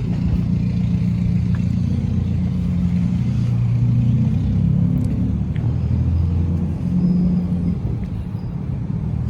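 Steady low rumble of a motor vehicle engine running, its low hum shifting slightly in pitch.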